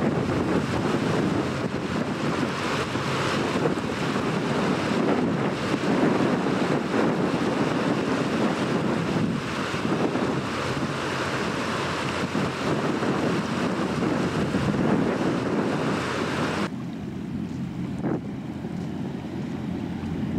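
Wind buffeting the microphone and water washing, over a low steady drone from a passing high-speed catamaran ferry's engines. Near the end the sound cuts abruptly to quieter shore ambience with less hiss, and the low drone is still there.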